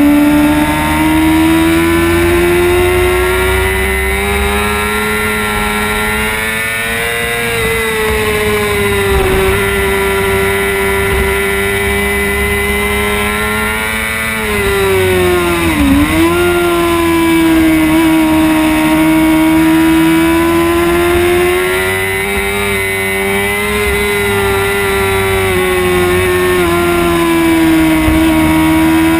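600cc supersport racing motorcycle engine held at high revs, heard onboard at speed with wind rush. The engine note rises and falls gently, and about halfway through it drops sharply and climbs straight back as the throttle is rolled off and opened again.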